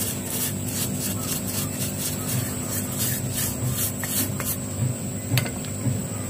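Paintbrush bristles scrubbing grime off the sprocket and clutch-side housing of a Stihl MS 180 chainsaw, in quick scraping strokes about three a second that stop about four and a half seconds in.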